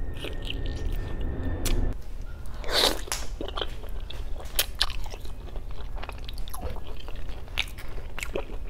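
Close-miked eating sounds: biting and chewing soft boiled pork hock skin and meat, with many short sharp mouth clicks and a louder wet burst about three seconds in.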